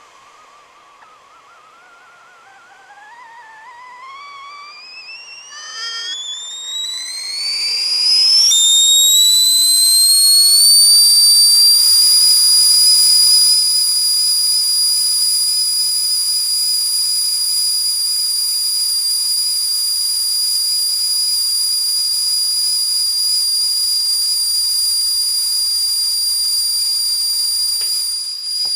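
Whistling kettle coming to the boil: a faint, wavering whistle climbs steadily in pitch for about eight seconds, jumps up, then holds a loud, steady, shrill high tone over a hiss of steam.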